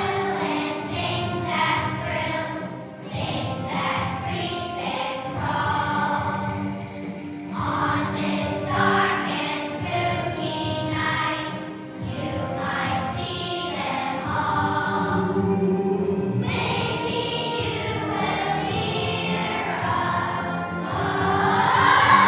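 A children's choir of third graders singing a song with musical accompaniment, swelling to its loudest near the end.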